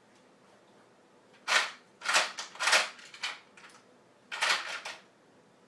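Metal sockets and hand tools clattering and rattling in several short bursts while someone rummages for a smaller socket.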